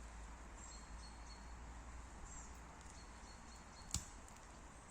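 Quiet forest ambience with faint, repeated high chirps from distant birds, and one sharp click about four seconds in.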